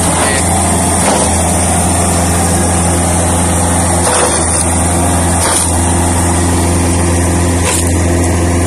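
Coconut-husk defibering machine running steadily: a motor spinning a bladed rotor and blower that break waste husk into coir fibre, giving one constant hum with a few faint ticks.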